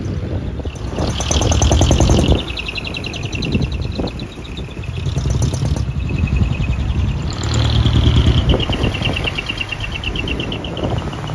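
Small custom trucks driving past, their engines revving loudly in two surges, the second about halfway through. A high, fluttering tone rides over each surge and sinks slightly in pitch as the second one dies away.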